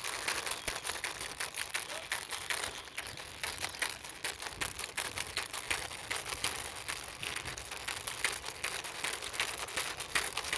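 Plastic toy vehicle pushed by hand along a surface, its wheels rolling and rattling in a dense, irregular run of small clicks and scrapes.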